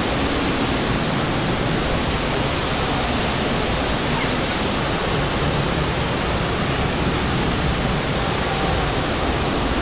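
Steady rush of flowing water from an underground cave stream.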